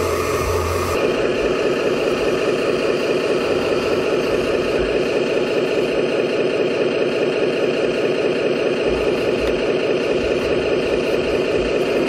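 Remote-control 1:12 hydraulic excavator and dump truck models running steadily, a dense mechanical hum that shifts in character about a second in.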